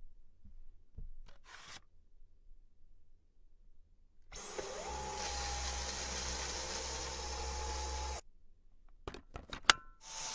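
Vacuum cleaner motor switched on, its whine rising briefly and then running steady for about four seconds before cutting off. A few clicks follow, one sharp, and the motor starts up again at the very end.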